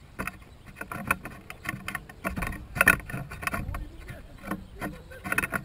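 Irregular rustling and knocking of a moving action camera over a low wind rumble on its microphone, with the loudest knock about three seconds in.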